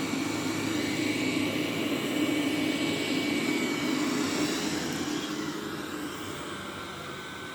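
Roborock Q7 Max robot vacuum running on a rug with its suction raised for carpet: a steady whir with a thin high whine. It grows fainter over the last two seconds.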